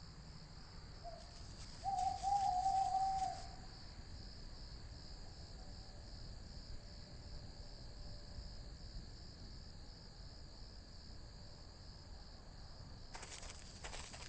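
Crickets chirping steadily. About two seconds in comes a single held whistle-like call lasting about a second and a half, and a few crackling steps start near the end.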